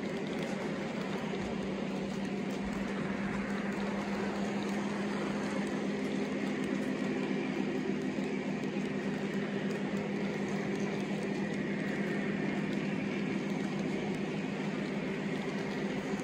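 O-gauge model freight cars rolling past on three-rail track: a steady hum and clatter of metal wheels on the rails.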